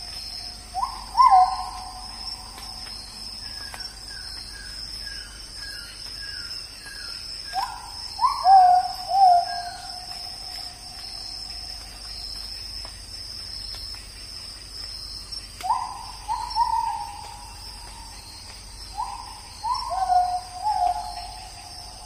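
Tropical forest ambience: a bird gives low whistled hooting calls of paired, slurred notes in a few bouts, and another bird puts in a run of about eight short falling notes between them. A steady high insect drone runs underneath.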